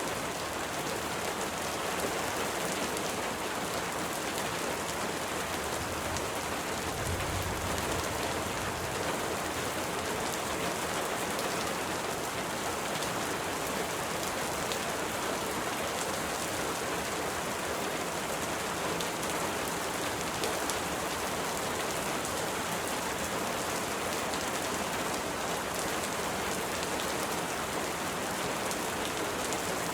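Steady, even rainfall: a dense hiss of many drops hitting a surface, with a brief low rumble about seven seconds in.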